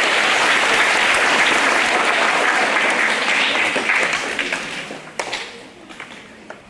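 Audience applauding in a hall, a dense steady clapping that dies away about four to five seconds in, leaving a few scattered last claps.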